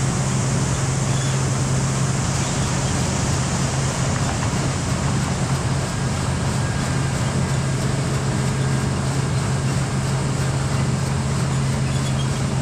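Heavy farm machinery engine running steadily at a constant speed, a low even hum with mechanical noise over it.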